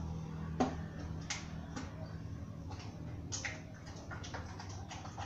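Irregular short, sharp clicks and taps, about a dozen, the loudest about half a second in, over a low background hum that fades at the start.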